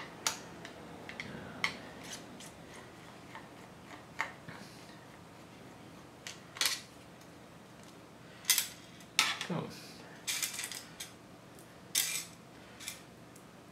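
Light metallic clicks, taps and scrapes of a perforated steel hard-drive cage being handled and worked with a screwdriver, with a few sharper knocks in the second half.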